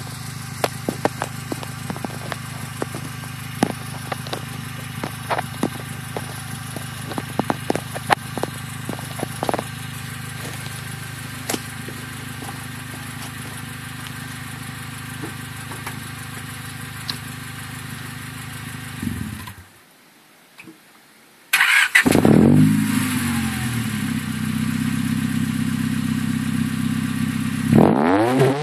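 Honda Prelude engine heard through a Spoon N1 muffler, idling steadily, with crackling clicks from poor camera audio. About 19 seconds in the engine shuts off. A couple of seconds later it restarts with a flare that settles back to idle, and near the end it is revved.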